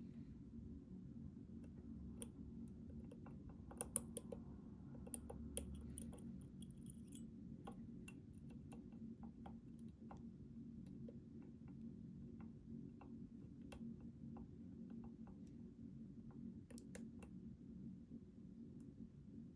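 Lock pick and tension wrench working in the keyway of a Schlage Primus Everest cylinder: faint, irregular small metallic clicks and ticks as the pins are set, thickest about four seconds in and again near the end, over a steady low hum.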